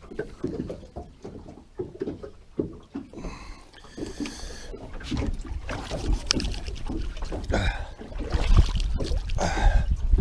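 Water slapping against a small fishing boat's hull, with irregular knocks and handling sounds on the boat.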